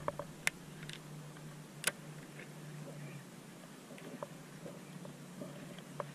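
Baitcasting reel being wound in, giving faint ticking with a couple of sharp clicks, over a steady low hum that stops about three seconds in.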